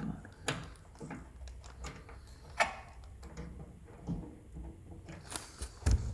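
Small plastic parts of a GE microwave's door-release mechanism being handled and fitted back together, with scattered clicks and knocks, the sharpest about two and a half seconds in and a cluster near the end.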